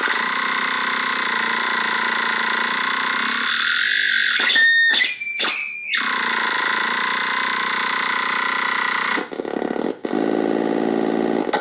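Homemade NAND-gate square-wave oscillator synthesizer buzzing through its own small built-in speaker: a harsh, dense electronic tone. About halfway through the tone cuts out briefly three times with short upward pitch slides. Near the end it switches abruptly to a lower, rougher buzz with one brief dropout.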